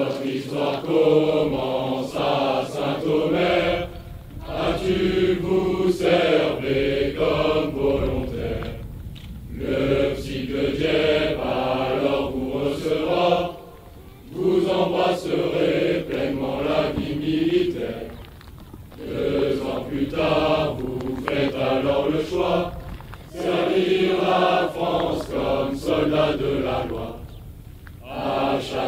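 Large group of gendarme students singing together in unison, unaccompanied, in phrases of about four seconds with short breath pauses between.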